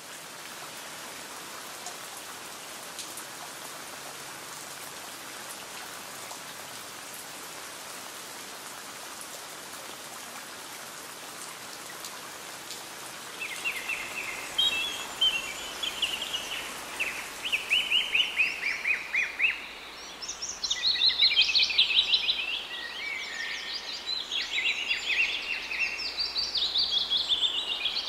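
A steady, even hiss, then about halfway in small birds begin chirping in quick trilled runs of notes, coming thicker and louder near the end.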